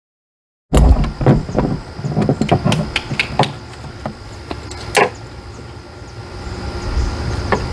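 Irregular clicks and knocks of a wrench and socket ratchet working the bolts of a stern-mount anchor bracket, several a second at first, then sparser, over a low rumble. They start abruptly about a second in.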